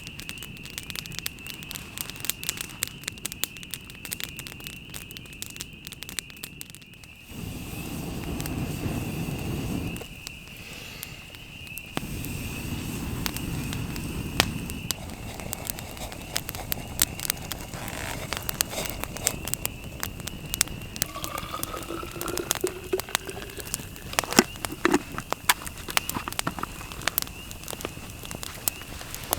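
Campfire crackling and popping with many sharp snaps. A steady high-pitched ringing sits behind it for the first half, and a low rushing sound rises twice early on.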